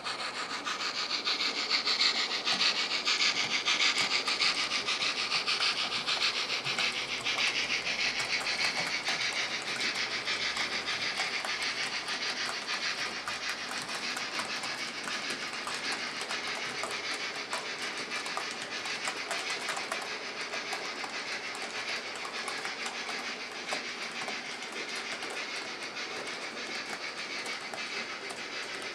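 Model railway train rolling along the track: a steady rapid clicking of small wheels over the rails, loudest in the first several seconds and slowly fading as the train moves away.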